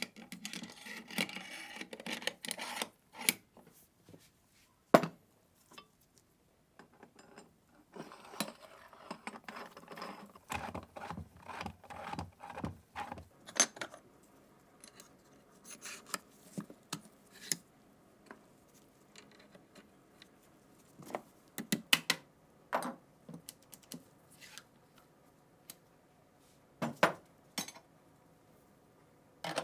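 Metal gun parts clinking and scraping against each other, in stretches of rubbing and scattered sharp clicks and knocks. The loudest knock comes about five seconds in.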